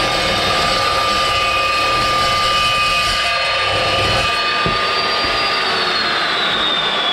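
Evolution S355CPS 355 mm cold-cut metal chop saw cutting through thick-walled steel box section, with a steady high whine over a grinding rasp. About four and a half seconds in, the cut finishes and the grinding drops away. The motor's whine then falls steadily as the blade spins down.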